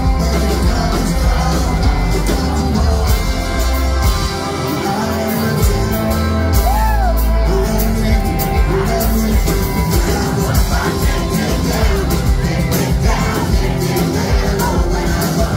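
Live folk-rock band playing: a man sings lead over strummed acoustic guitar, with bass and drums. The bass drops out briefly about four seconds in, then comes back.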